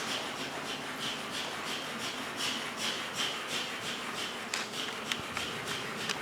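Even, repeated rasping strokes of a hand tool working on wall material, about three a second.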